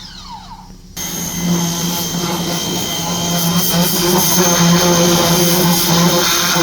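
Ryobi portable pressure washer's motor and pump winding down with a falling whine, then starting up again abruptly about a second in and running steadily with a high whine.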